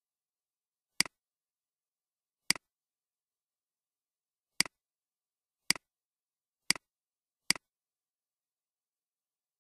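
Six computer mouse clicks, each a sharp double tick of the button pressing and releasing, spaced unevenly about a second apart, with dead silence between.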